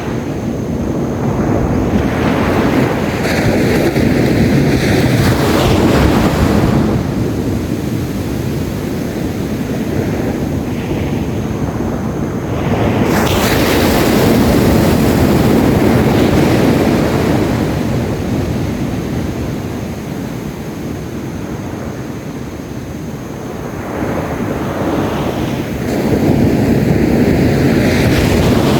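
Sea waves breaking on a sandy beach, the wash swelling and ebbing three times, about twelve seconds apart, with wind rumbling on the microphone.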